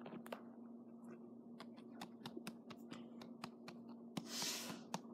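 Faint scattered clicks and taps from handling books, with a brief paper rustle about four seconds in, over a steady low hum.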